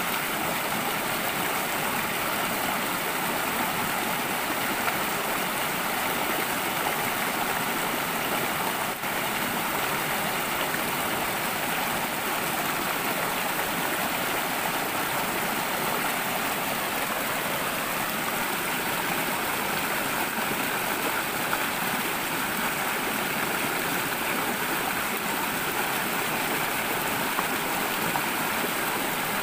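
Small forest stream running over rocks in shallow rapids: a steady rush of water.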